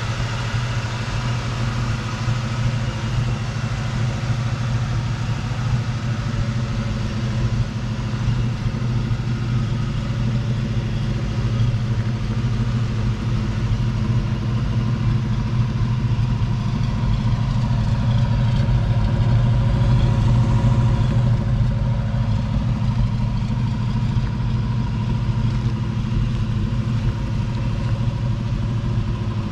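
AMC 360 V8 of a 1986 Jeep Grand Wagoneer idling steadily, a low even exhaust rumble that swells a little about twenty seconds in.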